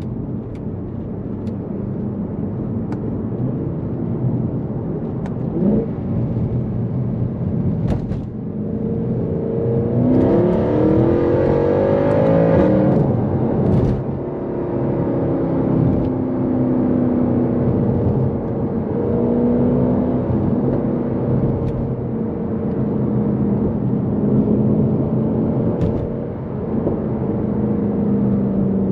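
Mercedes C63 AMG's naturally aspirated 6.2-litre M156 V8 driving under load, its pitch rising steeply under hard acceleration about ten seconds in, then running on at varying revs, with a few sharp clicks.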